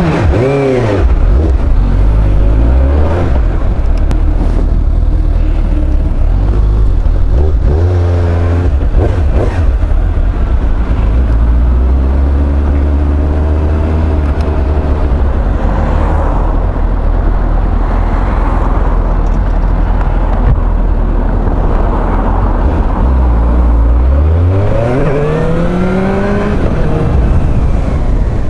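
Suzuki GSR 750 motorcycle's inline-four engine pulling away and accelerating. Its pitch climbs sharply near the start, again about eight seconds in, and in a long rise near the end, with a steady low engine drone between.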